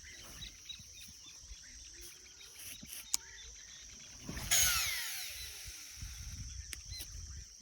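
Fishing reel whirring as line pays out during a cast, starting suddenly and falling in pitch as it fades over a second or two. A sharp click comes shortly before it.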